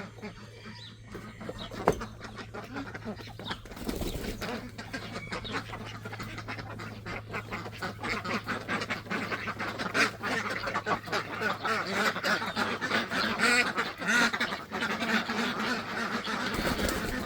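A flock of domestic ducks quacking, the calls thickening and getting louder from about halfway through as the ducks are let out of their pen and come running. A single sharp knock about two seconds in.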